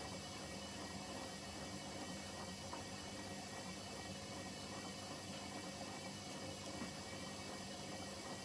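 Hoover H-Wash 300 washing machine running mid-cycle: a steady hum with a hiss, unchanging throughout.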